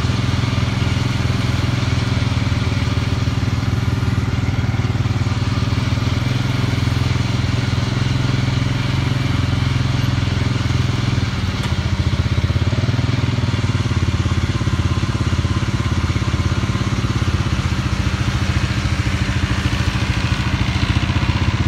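Tractor engine running steadily at working speed in a hay field, its pitch sagging briefly about halfway through and then recovering.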